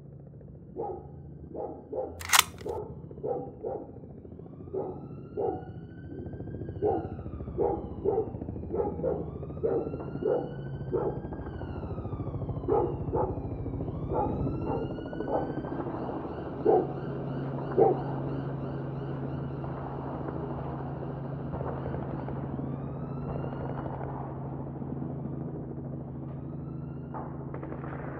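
A dog barking over and over, about once or twice a second, stopping about 18 seconds in, while a siren wails up and down in the distance over a low steady drone. A single sharp click comes about two seconds in.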